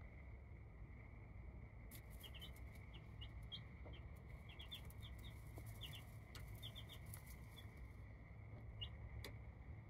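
Baby chicks peeping faintly in short high chirps, scattered in quick clusters from about two seconds in, with a few light clicks. A steady thin high hum and a low rumble run underneath.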